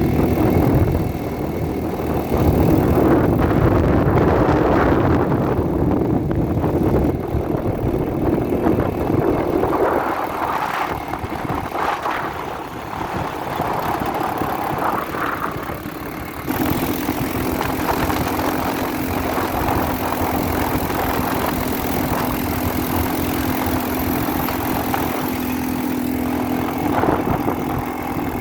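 ATV engine running. About 16 seconds in the sound changes suddenly to a steadier drone with one held tone.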